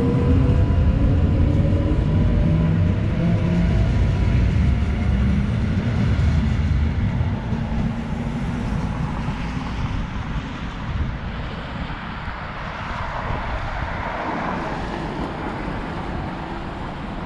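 EN57AL electric multiple unit pulling away, its traction motors whining upward in pitch over a heavy rolling rumble. The rumble and whine fade after about seven seconds as the train recedes. A softer rushing sound swells and dies away later.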